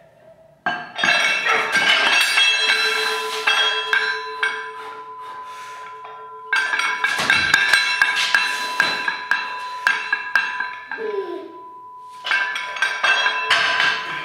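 Metal weight plates on a loaded barbell clanking and ringing against each other and the bar as it is lifted. The rapid clinks keep the same ringing pitches throughout, in three loud spells.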